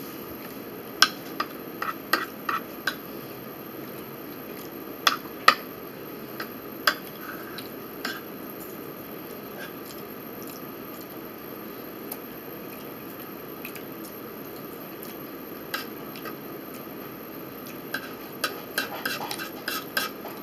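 Metal spoon clinking and scraping in a bowl as someone eats: a handful of short sharp taps in the first few seconds and again a few seconds later, a quiet stretch, then a quick cluster of clinks near the end, over a steady low hiss.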